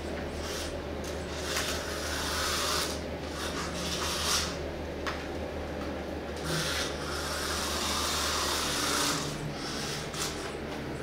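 A cat playing with a toy: rubbing and scratching noises in several bursts, the longest in the second half, over a steady low hum.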